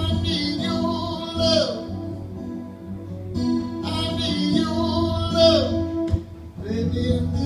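A singer holding long sung notes over a strummed acoustic guitar, amplified through a PA: two phrases, each ending in a slide down in pitch, the second starting about halfway through.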